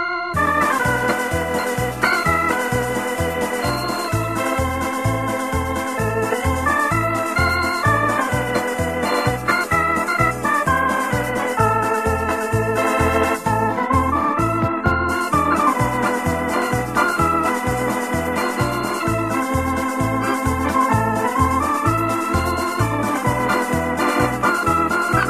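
Instrumental electronic organ music: a melody with chords carried over a steady, evenly repeating bass beat.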